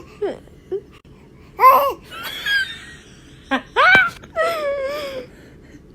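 A baby laughing and squealing in several short, high-pitched bursts.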